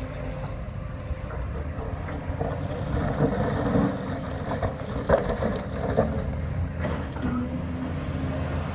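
Cat 330 NG excavator's diesel engine running steadily under hydraulic load as the boom lifts and the wide cleaning bucket curls. A few short knocks come between about three and seven seconds in.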